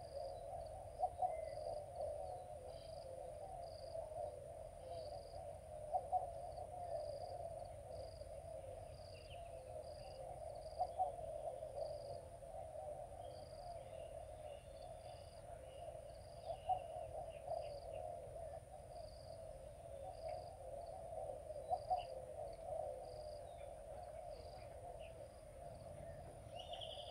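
Riverbank insects and birds: a steady insect drone with a high chirp repeating about once a second, and a low hooting call that comes back about every five seconds.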